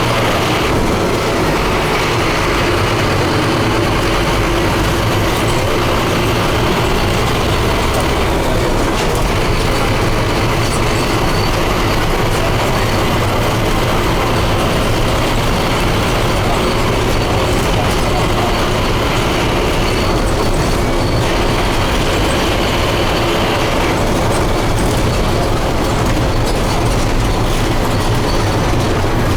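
Scania F250HB bus's 250 hp DC9 five-cylinder diesel engine running steadily as the bus moves, a loud low engine drone mixed with road and body rattle noise. The tone changes briefly a few times.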